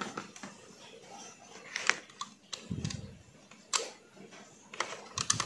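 A few light clicks and knocks from insulated wires and a plastic push-button switch being handled and moved: a sharp click about two seconds in, another near four seconds, and a cluster near the end.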